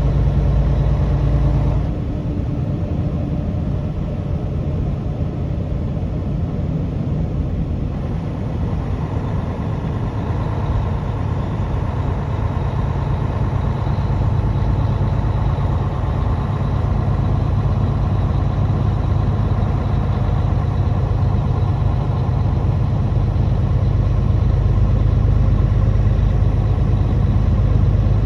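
Truck engine running steadily while driving, a low continuous drone that dips about two seconds in and slowly grows louder through the rest of the stretch.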